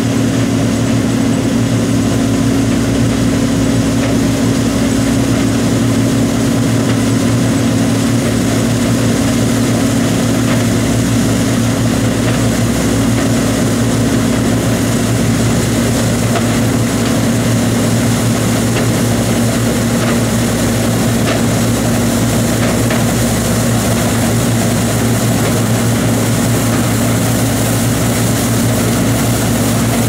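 John Deere 2256 combine harvester running under load while cutting oilseed rape: a steady diesel engine drone with a continuous hiss of the header and threshing machinery, growing slightly brighter in the second half as it comes closer.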